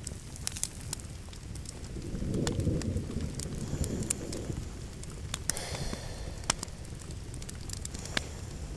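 Campfire crackling: scattered sharp snaps and pops over a steady low rumble, with a louder low swell about two to four seconds in and a brief hiss near the six-second mark.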